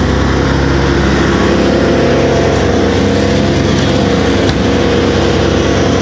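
Vermeer BC1000 brush chipper running steadily at a constant speed, with no wood being fed through it.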